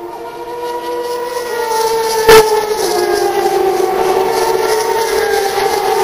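Turismo Carretera race car engines at high revs passing on the straight, a loud sustained drone that drops in pitch near the middle. A sharp pop stands out a little after two seconds in.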